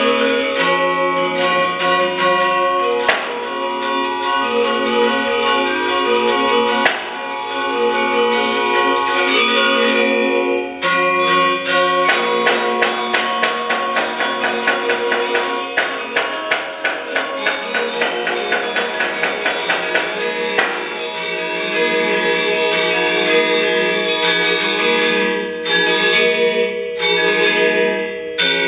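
Balinese gender wayang music: bronze-keyed metallophones struck with mallets in quick runs of ringing notes, growing into a rapid, dense stretch in the middle.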